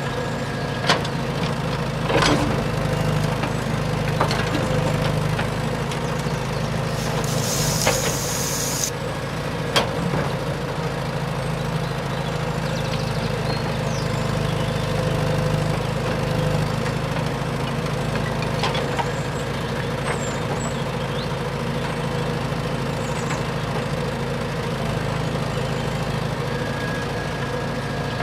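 A small motor running steadily with an even hum, with a few sharp clicks and a brief hiss about seven seconds in.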